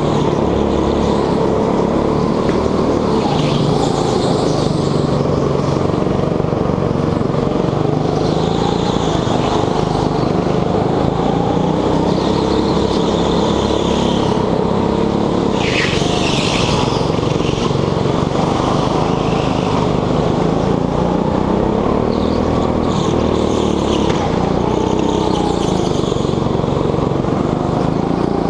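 Onboard sound of a petrol go-kart engine running hard around the track, its pitch rising and falling as it accelerates out of corners and backs off into them. Brief high-pitched tyre squeals come several times, the loudest about sixteen seconds in.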